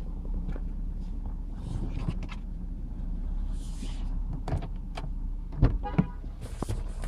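2007 BMW X3's straight-six engine running at idle with a steady low hum and scattered ticks and knocks, two louder knocks near the end. This is the intermittent tick that the owner takes for mechanical: it comes on at some starts and rises with throttle.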